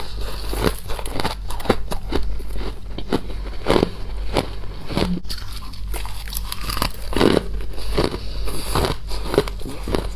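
Frost being bitten and chewed close to the microphone: a quick, irregular run of crisp crunches, several a second, over a steady low hum.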